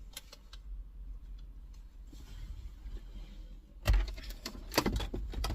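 Campervan engine running as a low, steady rumble heard from inside the cab, with light clicks throughout. About four seconds in comes a short burst of knocks and rattles, the loudest part.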